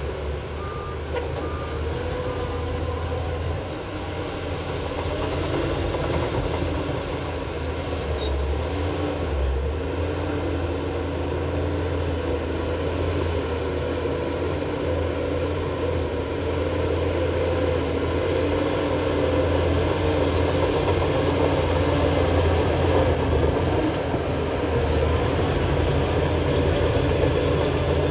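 Heavy diesel engine of a Shantui crawler bulldozer running steadily while working, gradually getting louder. A reversing alarm beeps a few times in the first few seconds.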